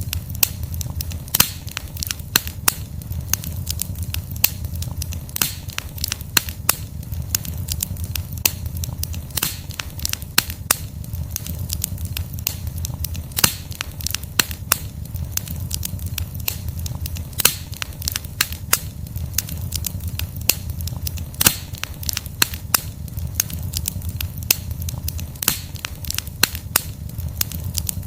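Log campfire burning, the wood crackling with frequent irregular sharp pops and snaps over a steady low rumble.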